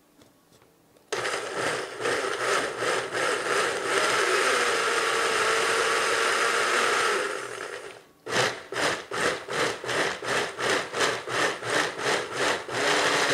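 Countertop blender pureeing roasted potatoes with water. It starts about a second in and runs steadily for several seconds. After a brief stop it is pulsed on and off about twice a second, then runs steadily again near the end.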